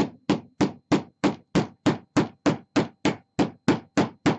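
Ball-peen hammer striking the case of a LiFePO4 battery over and over, about three sharp blows a second at an even pace, to break the case open.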